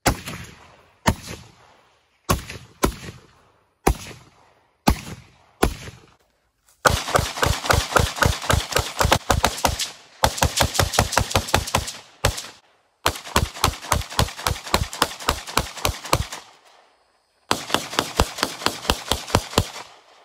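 Gunfire: about seven single shots roughly a second apart, each dying away in a short echo, then four long strings of rapid semi-automatic fire, several shots a second.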